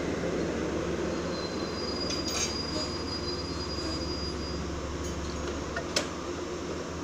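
Metro-North electric commuter train rolling slowly to a stop along the platform, with a steady rumble and a high, steady squeal lasting about two seconds near the middle as it brakes. A single sharp click comes near the end as the car doors begin to open.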